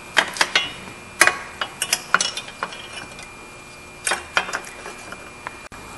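Irregular light clicks and metallic taps in small clusters with pauses between: hand work fitting a tube with a new gasket back into a water pump.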